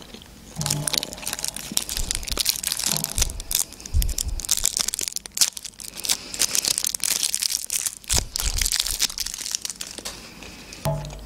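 Thin plastic film wrapper of an imitation crab stick crinkling and crackling as it is peeled off by hand, close to the microphone.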